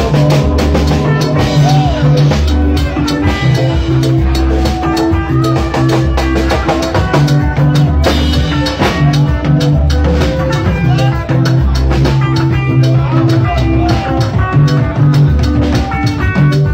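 Live Esan dance band playing, with a drum kit and a bass line keeping a steady dance beat.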